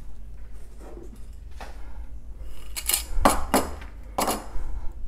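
Wooden lolly sticks clicking against each other and a ceramic bowl as they are picked out by hand: a few light knocks, then a quick run of about five sharp clicks in the second half.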